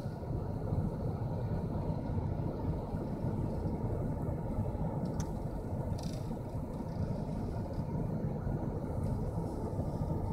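Steady low rumble of a vehicle, with a couple of faint clicks about halfway through.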